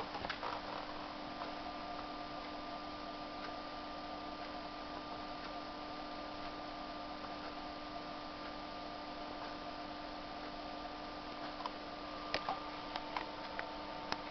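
Steady electrical hum with a faint, higher whine over light hiss, and a few faint clicks near the end.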